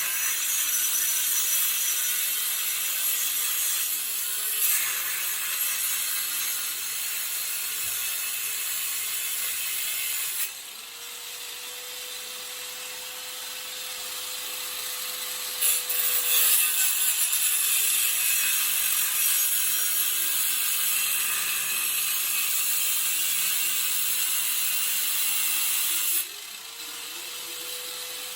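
Harbor Freight angle grinder cutting through 11-gauge steel, a loud, harsh high hiss. Twice, about a third of the way in and again near the end, it eases off the cut and the motor's steady whine shows through before cutting resumes.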